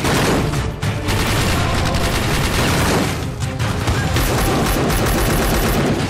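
Continuous gunfire from several automatic rifles firing at once, a rapid, unbroken fusillade of shots.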